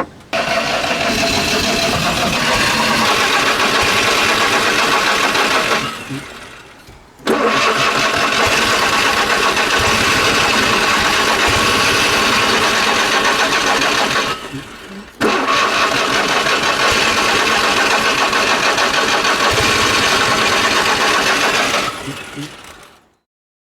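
Fiat 126's two-cylinder engine cranked by its starter in three long bouts, each several seconds, with short pauses between, not catching: a hard cold start after weeks of standing, with a flooded engine suspected.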